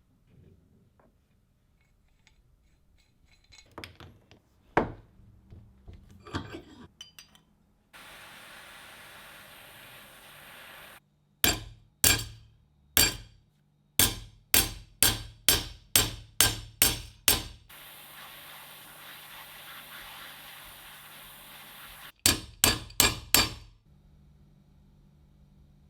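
Hammer blows on metal in short runs of sharp, ringing strikes, about two a second, with light taps before them and a steady hiss between the runs.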